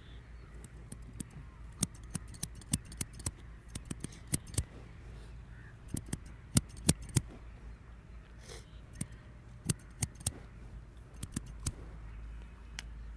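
Metal scissors snipping close to the microphone, in short runs of crisp snips with brief pauses between them.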